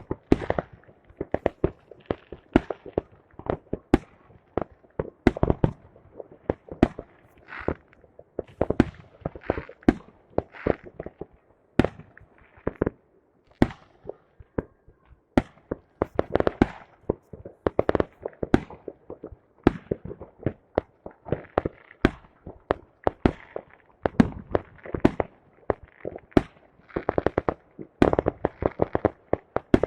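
Fireworks going off: a dense, irregular run of sharp bangs, several a second, with crackling between them.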